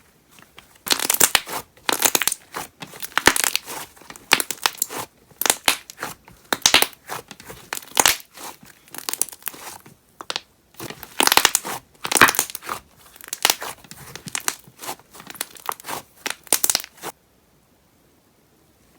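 Thick wood clay slime being pressed and stretched by hand, giving bursts of dense crackling and popping air bubbles. There is a short lull about ten seconds in, and the crackling stops near the end.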